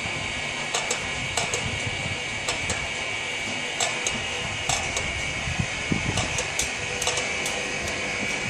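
Crane machinery running with a steady mechanical whir while it swings and lowers a suspended load, with about a dozen sharp clicks at irregular times.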